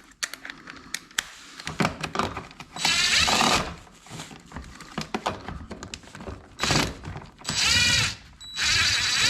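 Cordless power driver spinning a fastener on a plastic splash guard in four short bursts, its whine rising and falling with speed, with clicks and rattles of the socket and plastic in between; the fastener is stubborn and doesn't want to come off.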